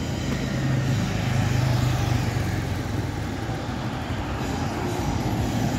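Road traffic on a city street: motor vehicles, among them a motorcycle and a van, driving past. A low engine hum swells to its loudest about a second or two in, then eases.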